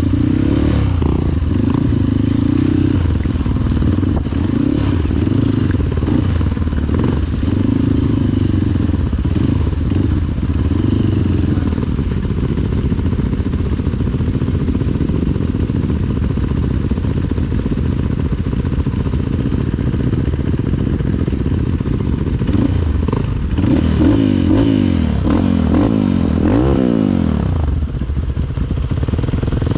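Trail motorcycle engine running at varying revs, with a run of quick revs rising and falling about two-thirds of the way through.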